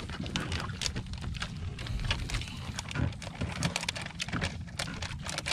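Irregular light clicks and rustles of a spoon and coffee sachet handled over ceramic cups while instant coffee is being made, over a steady low rumble.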